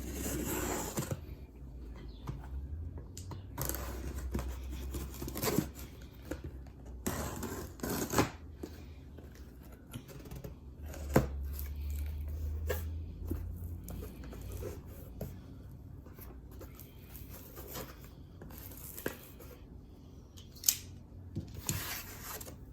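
A cardboard shipping box being opened and unpacked: tape and packaging cut and torn, with rustling and occasional sharp knocks as parts are handled.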